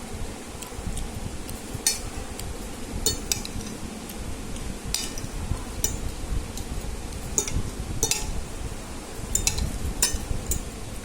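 A metal utensil clinking against a bowl or plate while noodles are eaten: about ten sharp, ringing clinks at irregular intervals. A steady low hum of a fan runs underneath.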